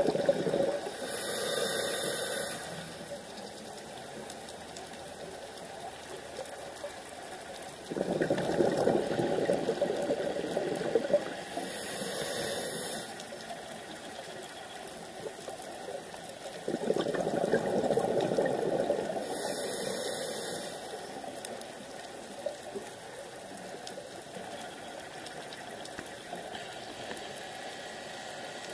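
A scuba diver breathing through a regulator underwater: three breaths about nine seconds apart. Each is a gush of exhaust bubbles lasting a few seconds with a short, high hiss of air through the regulator.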